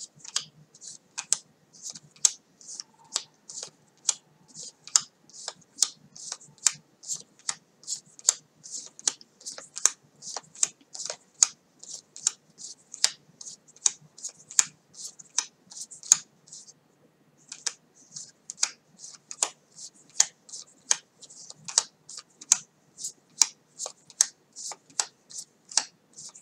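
A new deck of Unbound Leaves playing cards handled one card at a time, each card flicked off the deck and laid down: a steady run of crisp card snaps, about two a second, with a short pause about two-thirds of the way through.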